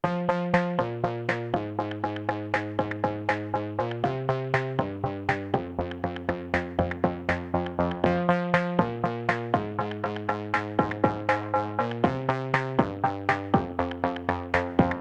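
Background music: an electronic track with a steady, quick drum-machine beat over held synthesizer chords that change about once a second.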